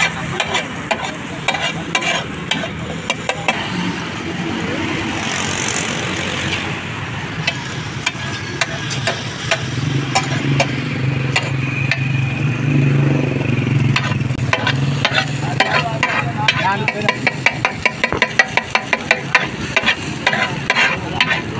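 Metal spatulas scraping and clacking on a large iron tawa as egg fries and sizzles on it, with a quick, even run of spatula strikes over the last few seconds.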